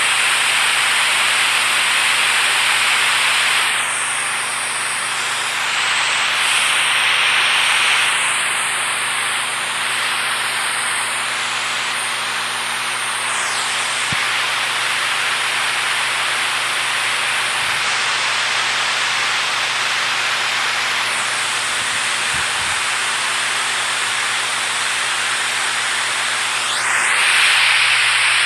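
Steady rush of flowing water, a dense hiss that swells and eases every few seconds.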